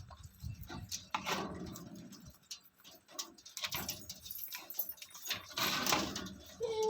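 Parrot making short, scattered chirps and squawks with clicks between them, and a longer harsh squawk near the end.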